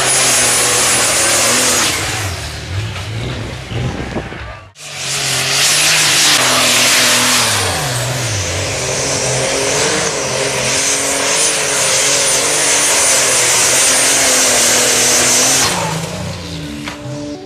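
Competition pulling tractors running flat out under load during pulls: loud engine noise whose pitch sags and climbs again as the engines labour against the sled, with a thin high whistle riding above. The sound breaks off sharply about five seconds in and picks up again on another tractor's run; music comes in near the end.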